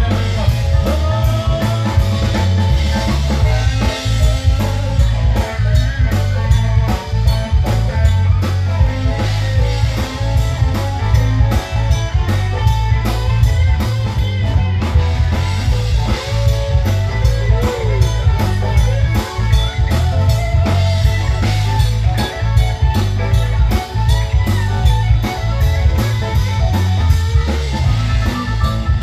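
Live rock band playing an instrumental passage: a Stratocaster-style electric guitar through an amplifier over a drum kit keeping a steady beat.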